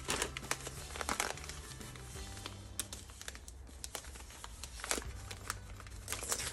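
Paper packing being torn off a part and crumpled by hand, a run of sharp crinkles that is busiest at the start and again near the end. Faint background music plays underneath.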